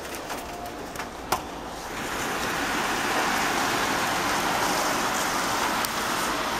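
Heavy downpour driven by gusting wind: a steady rushing hiss that swells about two seconds in and stays loud. A couple of sharp clicks come before it.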